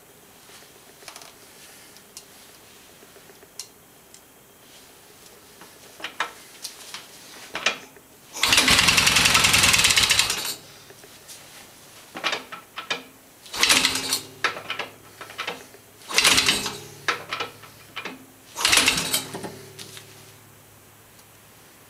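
1978 Yamaha XS650 parallel-twin engine cranked over by its starter for about two seconds, then catching and running roughly in a series of surges for several seconds before dying out. The owner puts its failure to stay running down to flooding that leaves it firing mostly on one cylinder.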